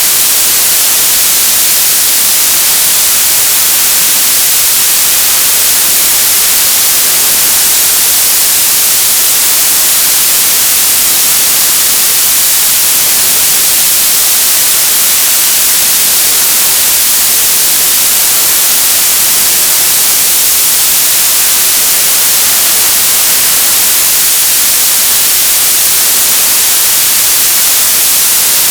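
Television static: a loud, steady hiss of white noise, brightest in the highs.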